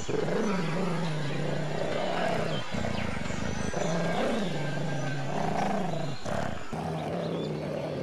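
Large dog growling: several long, low growls, each broken off by a brief pause, with the pitch swelling up and sliding back down twice.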